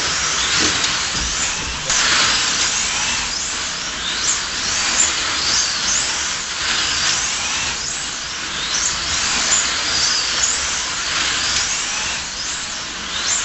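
Several 1/24-scale slot cars racing, their small electric motors whining at high pitch over a steady hiss, the whines rising and falling over and over as the cars pass.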